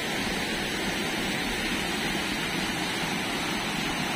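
Waterfall on a river running high with muddy floodwater after heavy rain: a steady, even rush of falling water.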